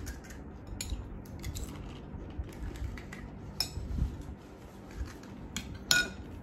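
Metal spoons clinking and tapping against bowls and plates while golgappas are filled, in scattered light taps, with one sharper ringing clink about six seconds in.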